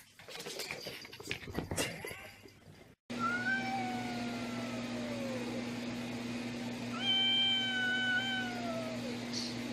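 A cat yowling: two long, drawn-out calls, each about two seconds long, held steady and then sagging in pitch at the end, over a steady low hum. Before them, for the first three seconds or so, comes a burst of clattering and scuffling.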